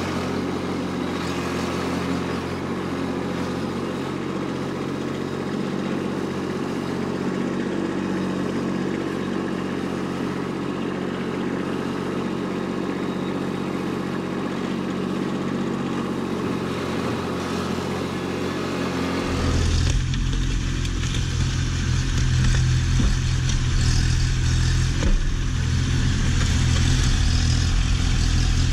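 Kubota B2601 compact tractor's three-cylinder diesel engine running steadily while the front loader works soil. About two-thirds through it suddenly becomes louder and deeper, heard from close beside the tractor.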